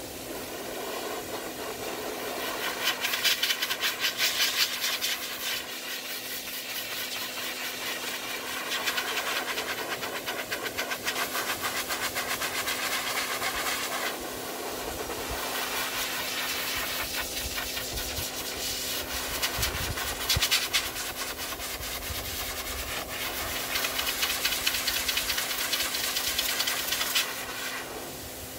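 Dog grooming blower (high-velocity pet dryer) blasting air into a wet Great Pyrenees' coat to blow the water out: a steady motor hum under a rushing hiss that swells and fades repeatedly as the nozzle moves over the dog.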